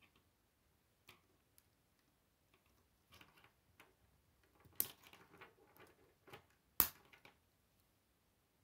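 K'nex plastic rods and connectors clicking and rattling as they are handled and snapped together. There are two sharp, louder snaps, one about halfway through and another about two seconds later.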